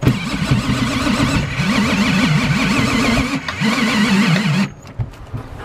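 Cordless drill spinning the Honda Pilot's spare-tire winch through the long jack extension bar, lowering the spare tire. The drill runs in three spurts with a wavering pitch and stops shortly before the end.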